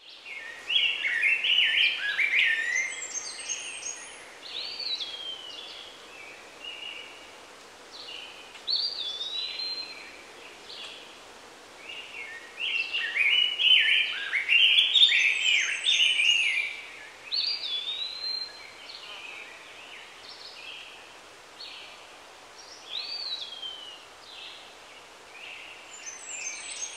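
Songbirds singing in clusters of short whistled and chirping notes that rise and fall, with lulls of a few seconds between them, over a steady background hiss.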